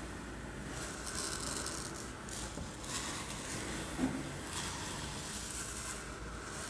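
Uncooked rice grains rattling and sliding in repeated swells of hiss, imitating sea waves washing on a shore. There is a soft knock about four seconds in.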